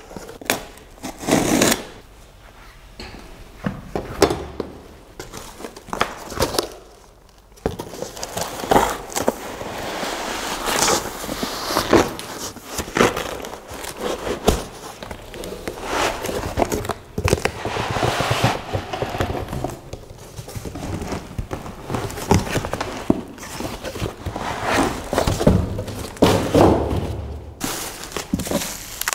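Unboxing a boxed product: cardboard box flaps and packing inserts being pulled about, then plastic bubble wrap being pulled and crinkled, a busy run of crackles and rustles with occasional knocks.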